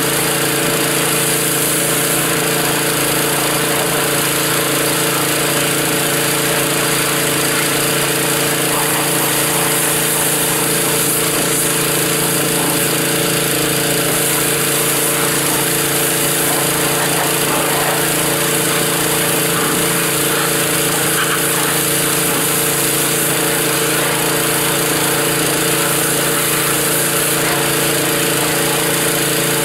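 Gas-engine pressure washer running steadily, with the hiss of its water jet spraying down a lawn mower.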